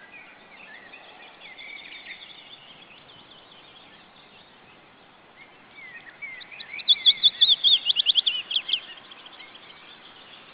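Osprey calling from the nest: a rapid series of loud, high, whistled chirps lasting about two seconds, starting past the middle. Fainter songbird chirps from the surrounding forest come before it.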